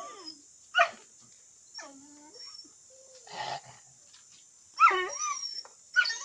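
Dogs giving short whines and yelps as they beg at feeding time, in separate bursts: a sharp one about a second in and the loudest, a whine that slides up and down, about five seconds in.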